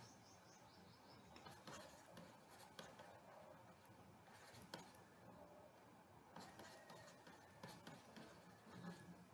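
Faint scratching and tapping of a stylus writing on a digital pen tablet, in short runs of strokes with pauses between.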